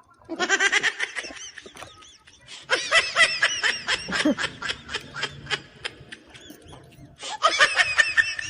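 A person laughing in three bouts of rapid, high-pitched pulses; the middle bout is the longest.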